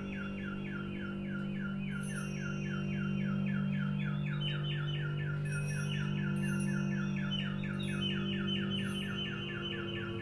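Electroacoustic improvised music: a fast run of short falling electronic chirps, about five a second, over a steady low drone.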